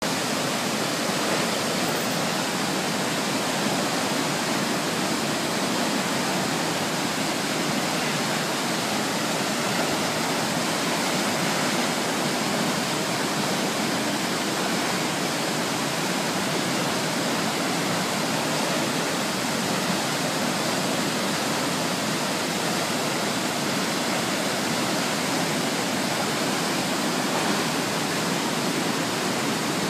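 Waterfall in spate: a heavy flow of muddy floodwater plunging down a rock cliff, making a steady, unbroken rush.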